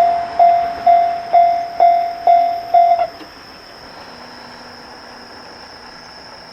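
Japanese railway level-crossing warning bell ringing, a repeated ding about twice a second, that stops about three seconds in: the crossing signal switching off as the crossing clears. A steady high whine continues underneath.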